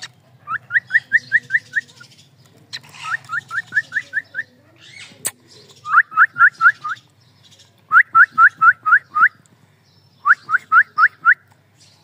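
Cockatiel calling in five bursts of quick, rising chirps, about six notes to a burst and a couple of seconds between bursts. A single sharp click comes about five seconds in.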